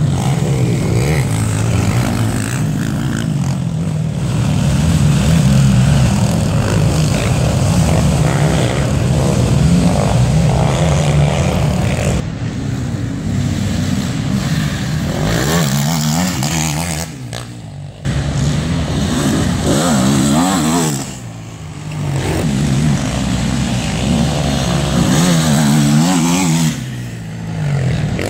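Several racing quad bike (ATV) engines revving hard and dropping off as the riders work the throttles around the dirt track. The engine noise swells and fades, with a few brief lulls.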